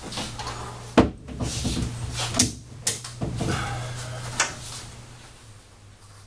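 Knocks and clicks of a stainless steel pull tool and rubber fastener being worked against a car's firewall, a sharp knock about a second in followed by several lighter clicks, over a steady low hum that fades near the end.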